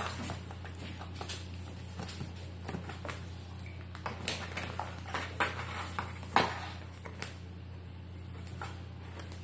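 Cat scratching and rustling at a cardboard pizza box: scattered short scrapes and taps, busiest and loudest between about four and seven seconds in, over a steady low hum.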